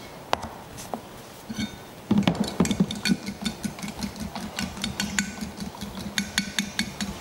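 Stainless-steel fork whisking beaten egg in a bowl. A few single taps come first; about two seconds in, fast whisking starts, with rapid clinks of metal on the bowl over a quick rhythmic slosh.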